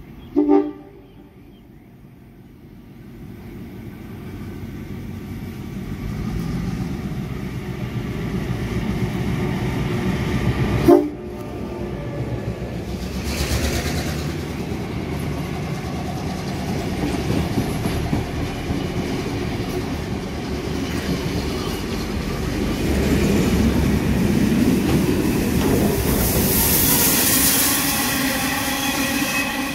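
Heritage steam train passing close by, its wheels clattering along the rails. Short whistle toots come about half a second in and again about eleven seconds in. A loud hiss of steam builds near the end as the streamlined steam locomotive approaches.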